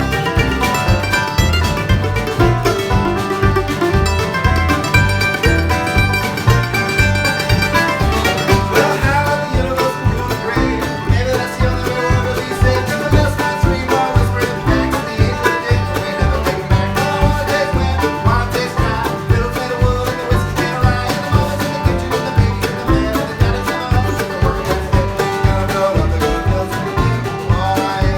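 A band playing an upbeat country-style tune, with plucked strings over a steady beat.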